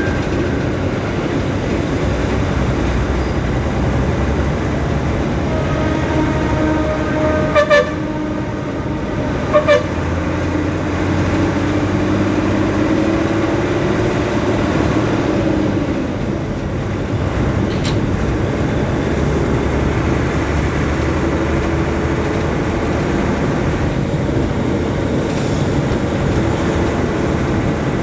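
Steady engine and road noise of traffic. A vehicle horn sounds: a held note from about six seconds in, then two short, loud double toots about eight and ten seconds in.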